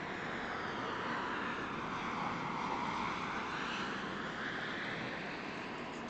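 Steady rushing noise of a passing vehicle, with a slowly sweeping whoosh that eases off slightly near the end.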